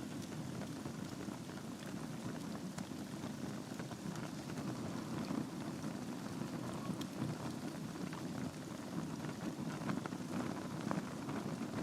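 Wood fire burning in a fireplace: a steady low rush of flame with frequent small crackles and pops from the burning logs.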